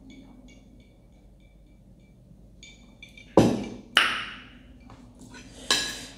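Faint sipping through a straw, then a glass jar of juice set down on the table with two sharp knocks, the second one ringing, about three and a half seconds in; near the end a fork and spoon clink against the plate.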